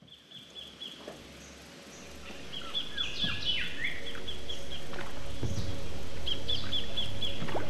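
Birds calling: rapid runs of short, high chirps mixed with a few falling whistles, fading up over the first few seconds. A low steady drone joins underneath about halfway through.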